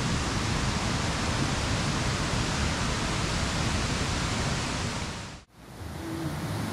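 Steady rushing of a jungle waterfall just below the campsite, a dense even noise. It breaks off abruptly for a moment about five and a half seconds in, then comes back.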